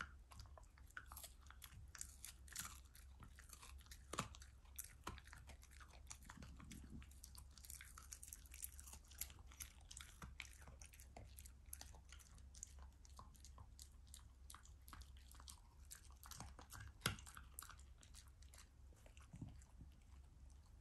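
A black Shiba Inu chewing and crunching its food: a long run of faint, irregular crunches, with a louder one about 17 seconds in.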